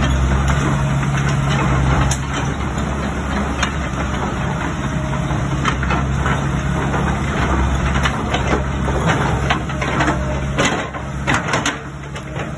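Crawler excavator's diesel engine running with a steady low drone while the boom and bucket are moved hydraulically. The engine note drops about ten seconds in, and a series of sharp knocks follows near the end.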